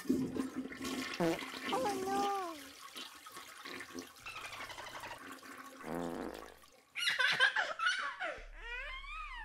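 Flush toilet flushing, with water rushing through the bowl, loudest about seven seconds in. Pitched calls that rise and fall in pitch sound over it about two seconds in and again near the end.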